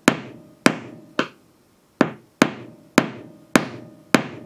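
A hammer tapping the end of a screwdriver whose tip is held against a car windshield to knock a chip into the glass. Eight sharp metal taps about half a second apart, with a short pause after the third, each followed by a brief ring.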